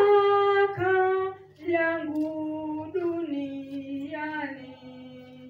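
A woman singing solo in a slow phrase of long held notes that step down in pitch.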